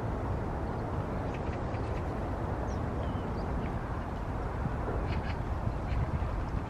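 Short, scattered bird calls over a steady low rumble.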